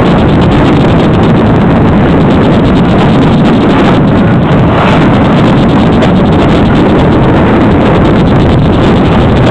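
Passenger train running along the track, a loud steady rumble heard from an open carriage window, with wind buffeting the microphone.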